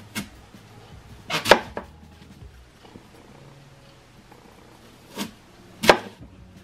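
Chef's knife cutting down through a peeled apple beside its core and knocking onto a plastic cutting board: a sharp knock at the start, a quick pair about a second and a half in, and two more near the end.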